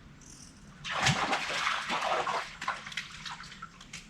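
Creek water splashing and sloshing, loudest for about a second and a half starting about a second in, then smaller scattered splashes.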